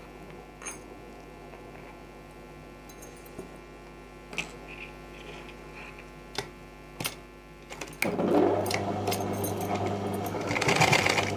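Domestic sewing machine: light clicks as the folded hem is set under the presser foot, then about eight seconds in the machine starts running with a steady hum, stitching the hem.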